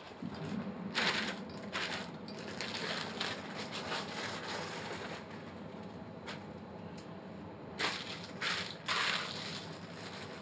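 Crinkling and rustling of plastic food packaging being handled, in several short bursts, over a steady low hum.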